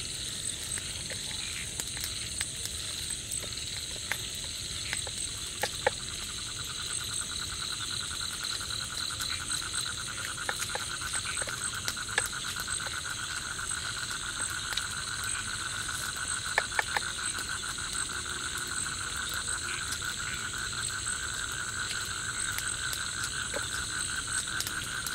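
Nighttime tropical forest chorus of insects and frogs: a steady high-pitched drone, joined about six seconds in by a fast pulsing trill that carries on. A few sharp clicks stand out now and then.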